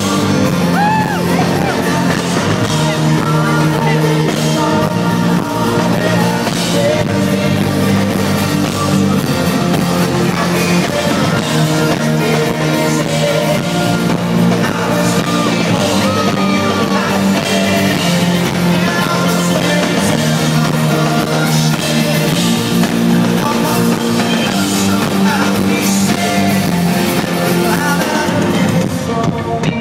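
A pop-rock band playing loud live music: drums, electric guitar and keyboards under a male lead vocal.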